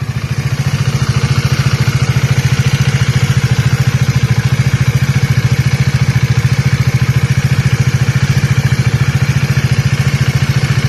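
Bajaj Dominar 400's single-cylinder engine running at a steady idle, an even pulsing beat with a clattery, tinny top-end noise over it. Its owner likens this to a cam chain or valves and fears the engine is out of tune; the valve stem area has been blamed. The sound fades out near the end.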